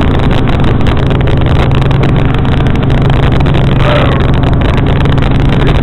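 Helicopter engine and rotors running, a loud, steady drone that stays constant throughout.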